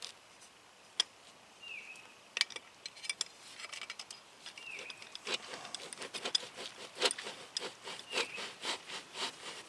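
Metal parts of a mini milling machine being handled and slid into place by hand: scattered clicks and scraping that get busier about halfway through, with a few short high squeaks.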